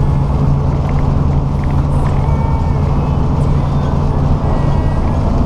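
Semi-truck engine running steadily at highway speed, heard inside the cab along with road noise.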